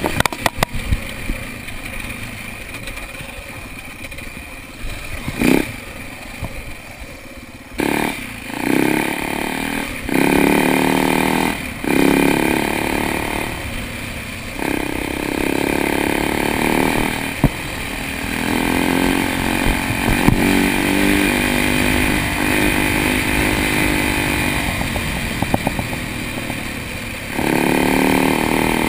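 Dirt bike engine heard from the rider's position while riding a trail: a quieter run with a few knocks at first, then from about eight seconds in, repeated bursts of revving as it accelerates and changes gear, settling into a steady run, with another rev near the end.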